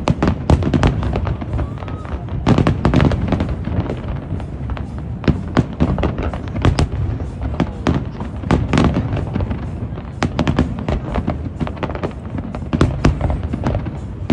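Fireworks bursting in quick succession, several bangs and crackles a second over a continuous low rumble.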